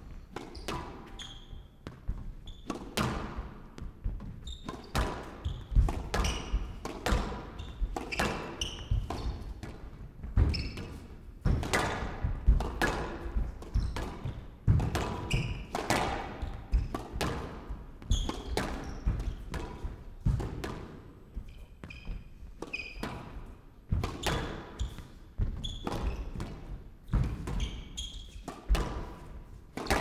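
Squash rally in play: the ball cracking off rackets and court walls in an irregular rhythm, several hits every couple of seconds, with short squeaks between them.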